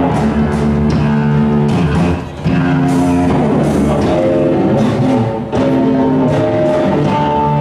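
Rock music with guitar and a steady drum beat, dipping briefly twice.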